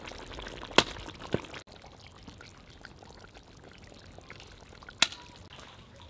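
Zirvak broth bubbling at a slow simmer in a cast kazan over a wood fire, with a couple of sharp pops. About a second and a half in, it cuts off abruptly to a fainter steady background with a single sharp click near the five-second mark.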